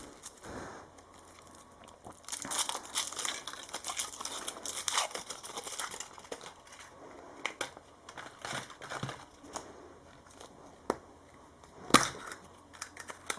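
Crinkling and tearing of a Yowie chocolate's wrapper as it is unwrapped by hand, busiest in the first half. Small clicks and cracks follow as the chocolate is broken apart, with one sharp click near the end.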